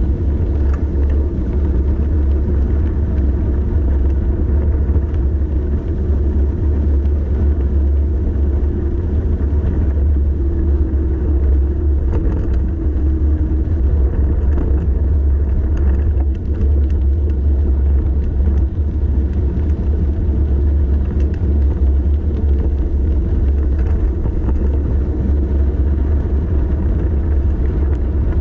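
Steady low rumble of wind buffeting the microphone and road noise from a bicycle riding downhill.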